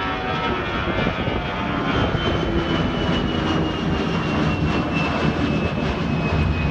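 Airbus A320-211's CFM56 turbofan engines at takeoff-climb power passing overhead: a loud, steady jet roar with a high whine that slowly falls in pitch.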